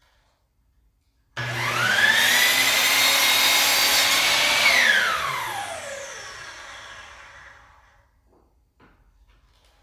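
Electric miter saw starting suddenly about a second in, its motor whine rising to a steady pitch while it cuts a wooden board. Once the trigger is let go it winds down with a falling whine, fading out over about three seconds.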